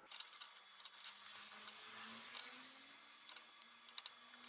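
Faint machine running: a low motor hum rising slowly in pitch, with scattered light clicks and a hiss.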